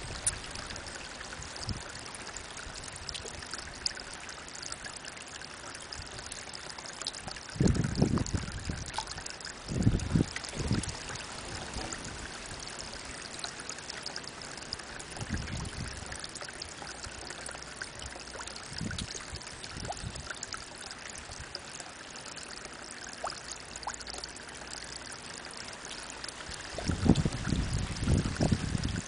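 Spring water trickling and splashing steadily as a thin stream falls from a mossy rock into a koi pond. A few brief low rumbles come through, the loudest near the end.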